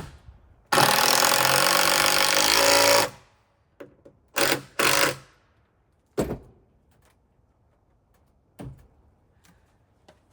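Power drill driving a screw into a wooden roof beam, running for about two and a half seconds with its pitch shifting under load, then two short bursts to seat the screw. A couple of faint knocks follow.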